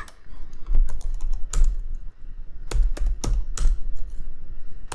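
Typing on a computer keyboard: irregular keystrokes with dull thuds, entering numbers.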